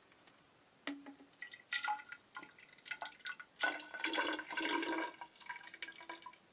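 Hydrogen peroxide poured in small dribbles and drips from a little bottle into a tall measuring cylinder, starting about a second in just after a click.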